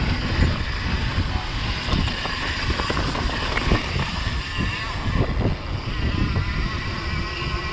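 Mountain bike riding down a dirt bike-park trail, heard from a camera on the bike or rider: a steady low rumble of wind and tyres, broken by frequent short clicks and rattles as the bike goes over rough ground.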